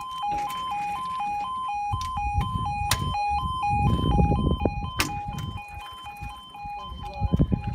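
Level crossing warning alarm sounding its two-tone yodel, a lower and a higher tone alternating steadily, with a low rumble of road traffic underneath.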